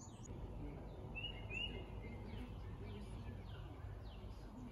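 Birds chirping, with a quick run of two or three notes about a second in and fainter falling calls after it, over a steady low background rumble.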